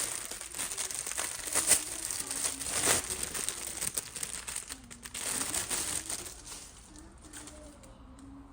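Packaging being handled and unwrapped, crinkling and rustling with sharp crackles, dying away near the end.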